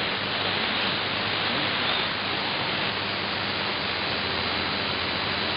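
Shortwave static from a Perseus SDR receiver in AM mode as it is tuned across the 19-metre band: a steady hiss with a faint low hum and a faint high whistle.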